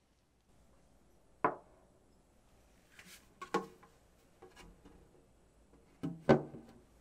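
Hard objects being handled and set down: a sharp knock, a short rustle and a second knock, then a louder double knock near the end.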